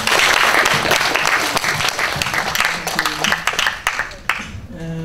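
Audience applauding, a dense patter of many hands clapping that thins out and dies away about four seconds in.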